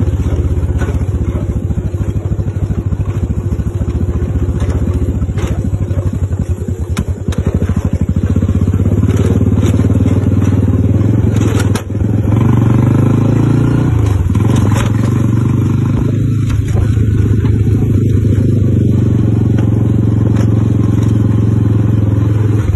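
An engine running steadily with a strong low hum and fast pulsing. About halfway through there is a brief dip, and the tone changes after it.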